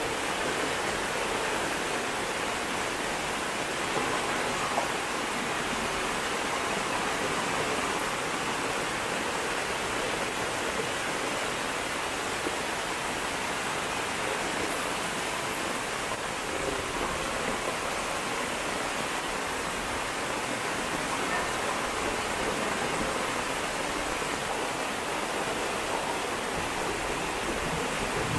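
Steady rush of muddy rainwater flowing fast down a lane as runoff from heavy rain.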